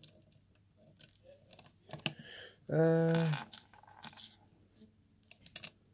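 Small plastic LEGO bricks clicking and tapping as pieces are pressed onto a model, with scattered light clicks throughout. About three seconds in, a short steady hum from a person's voice is the loudest sound.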